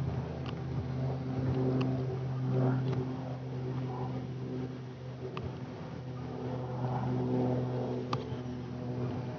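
Van's RV-10 light aircraft's piston engine and propeller droning steadily overhead in cruise, swelling and easing slightly in loudness.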